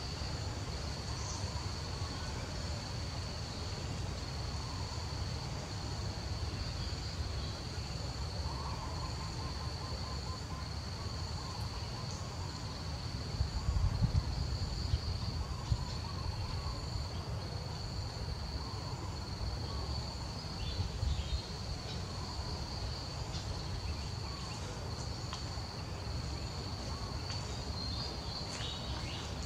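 A steady, high-pitched insect chorus runs unbroken over a low rumble. A few louder low thuds come about halfway through and again about two-thirds of the way through.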